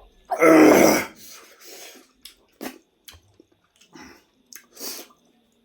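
Close-miked eating sounds: one loud, noisy mouthful sound about half a second in, then scattered soft chewing and smacking clicks.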